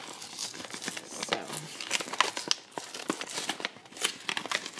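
Packaging of a cardstock and overlay paper pack being torn open and crinkled by hand: a dense run of crisp crackles and rustles.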